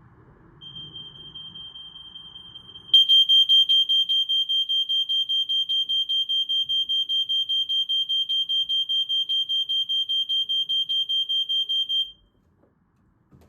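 Smoke alarm held in for a test, sounding a high electronic tone. The tone starts faint, turns loud about three seconds in with a rapid steady pulsing, and cuts off about a second and a half before the end.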